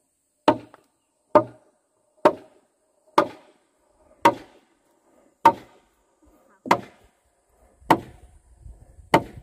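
Chopping strokes of a blade into wood, nine hard chops a little over a second apart, slowing slightly toward the end.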